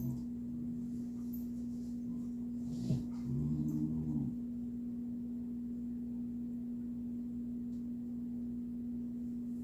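Pet dogs at play: one gives a single low-pitched vocal sound, about a second long, some three seconds in, over a steady low hum.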